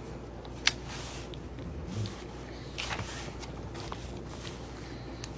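Quiet rustling and soft clicks of paperback pages being turned and pressed flat, with a cat eating close by. A single sharp click comes a little under a second in.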